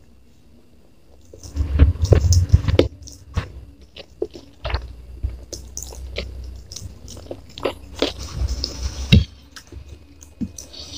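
Close-miked chewing and biting of fried noodles, rice and chicken: wet mouth clicks, smacks and some crunching. It begins about a second and a half in and is heaviest just after it starts, with one sharp smack near the end.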